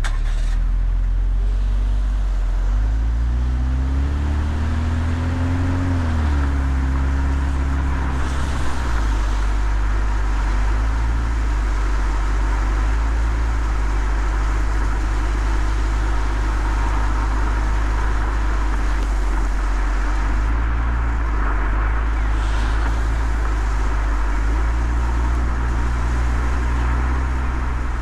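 Car driving on a wet road: engine running with a deep steady rumble and tyres hissing on the wet surface. The engine note rises a few seconds in as the car speeds up, then settles.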